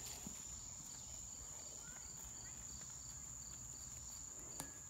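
Crickets trilling steadily in a high, continuous tone, with a fainter chirp repeating evenly underneath. One short click near the end.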